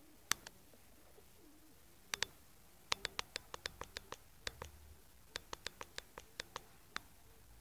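Siberian husky gnawing a large raw bone: its teeth click and scrape on the bone in sharp, irregular runs of several clicks a second, with short pauses between.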